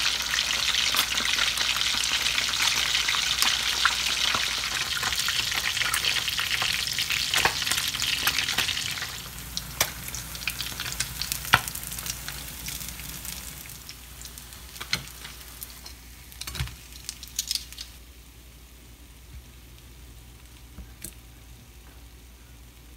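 Whole surf perch frying in hot oil in a skillet: a loud, steady sizzle that drops off about nine seconds in. Then a quieter sizzle with scattered clicks of metal tongs against the pan as the fish are turned, fading toward the end.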